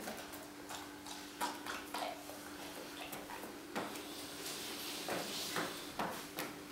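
A Briard's claws and sneakers tapping and scuffing on a hard stone floor as the dog, standing on its owner's feet, shuffles along with him: irregular clicks and knocks with a scraping scuff near the middle, over a faint steady hum.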